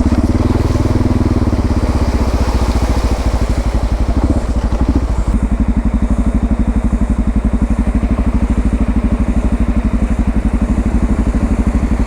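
Suzuki DR650's single-cylinder four-stroke engine running at low speed, a steady thumping beat that is strongest for the first couple of seconds. A higher hiss over it drops away about five seconds in.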